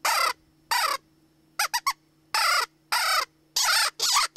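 Ruffidawg Coaxer open-reed predator call blown in short, wavering squeals that imitate a bird in distress, the tone fluttered with the tongue. Two squeals, then three quick chirps, then a run of longer squeals about two a second.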